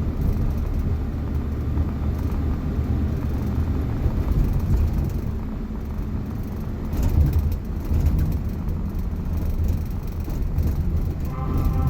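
Suzuki Jimny JA71 on the move: a steady low road and drivetrain rumble.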